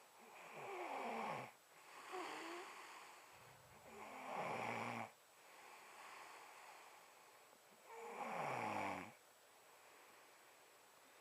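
A man snoring in his sleep: three loud snores about every four seconds, each falling in pitch, with a softer snore after the first and quieter breathing between them.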